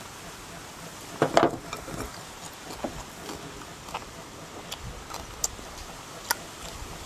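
Eating sounds from a meal of crispy deep-fried giant gourami: a short burst of crunching about a second in, then scattered single sharp clicks of chopsticks against bowls.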